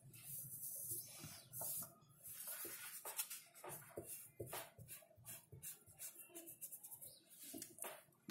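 Faint pencil scratching on drawing paper in many short, irregular strokes, with the sheet rubbing against the desk as it is turned.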